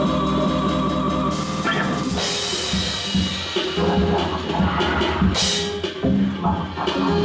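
Rock band playing live: a held chord rings for about the first second, then the drum kit takes over with a run of hits and a cymbal crash about five seconds in.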